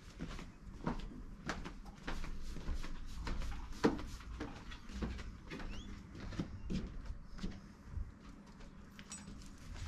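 Footsteps and light knocks on a timber verandah deck, heard as irregular clicks and thuds over a low rumble, with one sharper knock about four seconds in.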